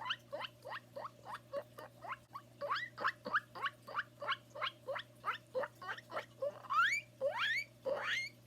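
A man imitating a guinea pig with his voice: a fast run of short rising squeaks, about four a second, that turn into a few longer, louder, higher wheeking squeals near the end.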